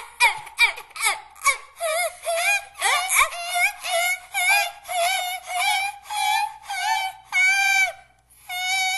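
A high-pitched voice singing wordless syllables: short warbling notes about two a second, the last few held longer and steadier.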